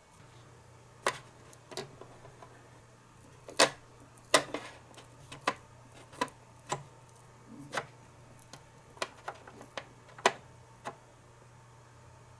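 Irregular light taps and clicks of small hard toy kitchenware and utensils being handled and set down, about fifteen in all, the sharpest a little under 4 s and 4.5 s in and near the end, over a faint steady hum.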